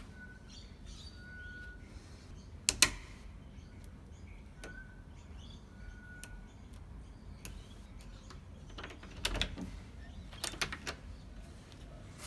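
Mechanical push-button combination lock on a door being worked: buttons clicked in for the code, one sharp click a few seconds in the loudest, then a run of clicks and knocks near the end as the knob is turned and the latch released. A few short, faint bird whistles early on.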